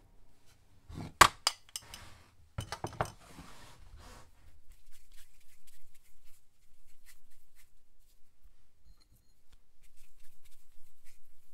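Small porcelain dish clinking sharply on a stainless kitchen scale a few times in the first three seconds, the loudest about a second in. Then faint, soft handling sounds of hands working a portion of black sesame bean paste over the scale.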